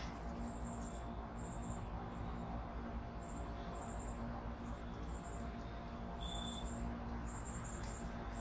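Backyard ambience: high, thin chirps repeating in short groups every second or so, two short whistled notes a few seconds apart, and a steady low hum underneath.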